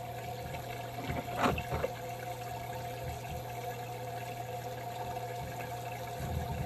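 Water splashing and trickling down inside a 3D-printed hydroponic tower, fed by a VIVOSUN 800 GPH submersible pump that hums steadily. A brief knock about a second and a half in.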